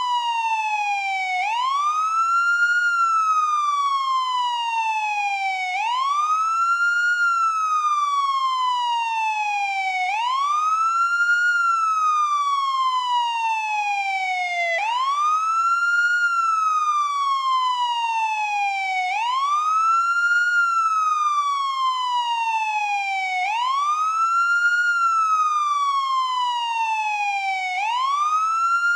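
American police car siren in wail mode: a single tone that sweeps up quickly and then falls slowly, repeating about every four seconds, seven cycles in all.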